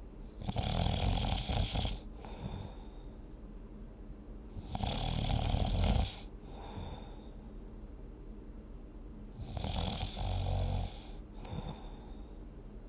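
A sleeping person snoring: three snores about four and a half seconds apart, each followed by a shorter, quieter breath.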